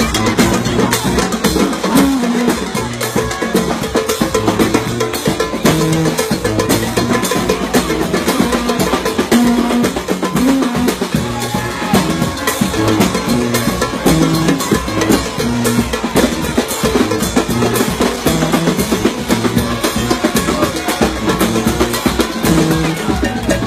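New Orleans second-line brass band playing: a sousaphone carrying a moving bass line over a steady beat of snare and bass drums.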